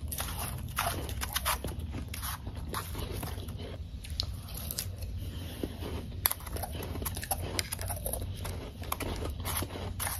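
Close-up chewing of powdery ice: a steady, irregular run of soft crunches, several a second.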